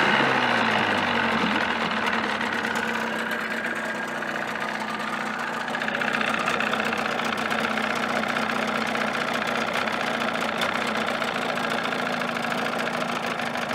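1979 Evinrude 35 hp two-stroke outboard motor running with its engine cover on, revs settling down over the first couple of seconds, then running steadily.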